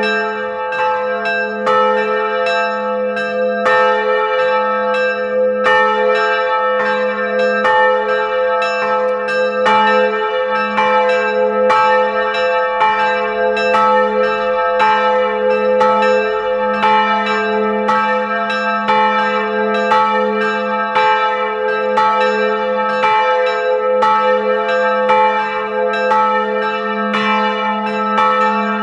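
Two bronze church bells swung by electric linear drives and ringing together: a large bell of about 550 kg and a small 30 kg bell. Their clapper strikes come closely one after another over a sustained, humming ring.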